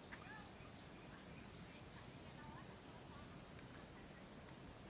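A steady, high-pitched chorus of insects buzzing and trilling, with a few faint short chirps from other calls.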